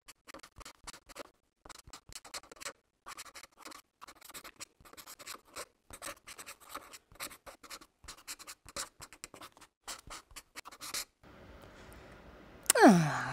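Marker pen scratching across paper in clusters of short handwriting strokes with brief pauses. Near the end a loud tone slides steeply down in pitch.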